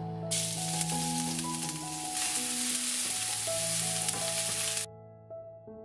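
Chopped onion hitting hot oil in a frying pan and sizzling as it is stirred with a wooden spoon; the sizzle starts just after the start and cuts off suddenly about five seconds in. Background music plays underneath.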